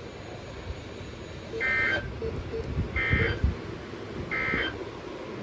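Three short, identical warbling data bursts of the Emergency Alert System's SAME digital tones, about a second and a half apart: the end-of-message signal that closes a weather radio alert.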